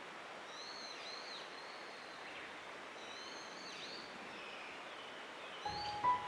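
Small birds singing short warbling, gliding phrases over a steady outdoor hiss. Music comes in near the end.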